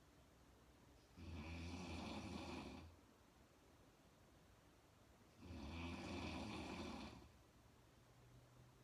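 A sleeping woman snoring: two long snores, each about a second and a half, about four seconds apart, with quiet between them.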